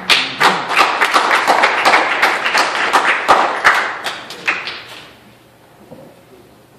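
Congregation clapping and applauding, a rapid run of sharp hand claps that dies away about five seconds in.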